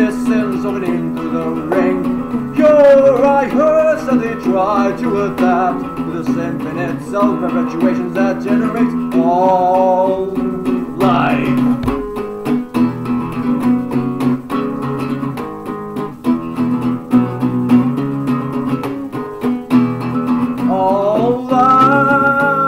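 Acoustic guitar strummed and picked steadily, with a man's voice singing long wavering notes over it in stretches: near the start, about ten seconds in, and again near the end.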